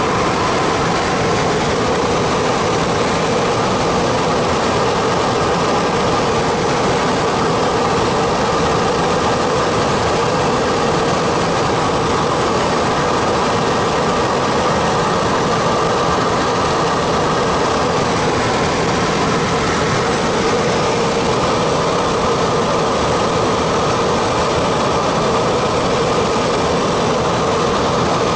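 A light propeller plane's engine and propeller drone steadily in flight, heard from inside the cockpit together with the rush of the airflow.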